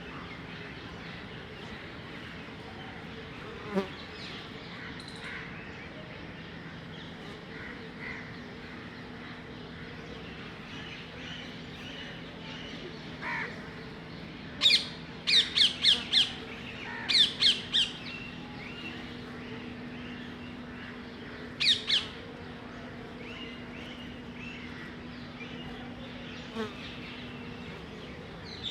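Bees buzzing in a steady low hum at their nest in a hollow tree, with loud harsh bird squawks over it: a quick run of about eight sharp calls around the middle and two more a few seconds later.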